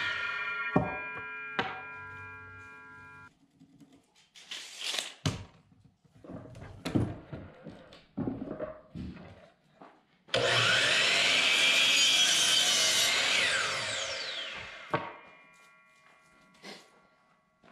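DeWalt sliding miter saw winding down with a fading whine after a cut through a small oak pole, then a few knocks of wood being handled. About ten seconds in the saw starts suddenly, cuts through another pole for about three seconds, and winds down again with a whine that fades out.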